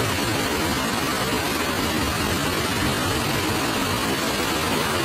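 Heavy rain pouring down on a street, a steady, dense hiss.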